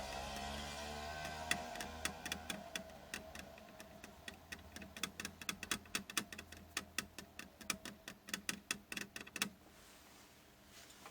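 A fast, irregular run of sharp small clicks and taps, several a second, that stops abruptly near the end.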